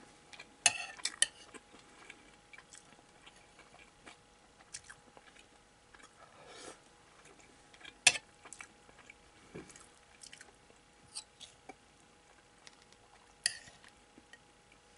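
Metal fork clinking and scraping on a ceramic plate while picking up crumbled hamburg steak, with chewing between; a few sharp clinks, the loudest about eight seconds in.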